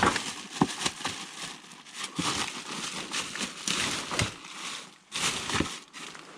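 Irregular rustling and crinkling with scattered sharp clicks and knocks, like handling noise. It drops out briefly about five seconds in, then returns.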